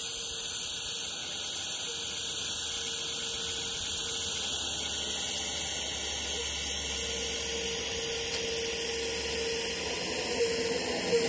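Small live steam locomotive standing and hissing steam steadily while it raises boiler pressure, with a faint steady tone that comes and goes.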